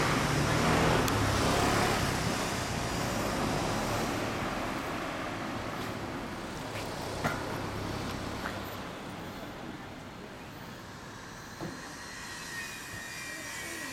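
Road traffic: a passing motor vehicle, loudest at the start and fading away over several seconds, with a few faint clicks later on.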